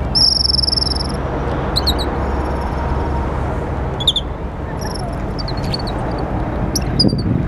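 Short high-pitched animal chirps, with one held whistle of about a second just after the start and a few brief chirps later, over a steady low rumble.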